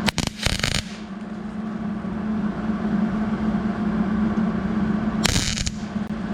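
Electric welder arcing in two short crackling bursts, about a second at the start and half a second near the end, while tacking a nut onto a broken-off stud, over a steady low hum.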